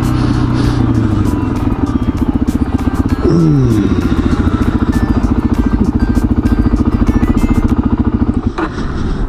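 Suzuki DR-Z400's single-cylinder four-stroke engine running at low speed. Its revs drop about three seconds in, and it then chugs steadily at low revs.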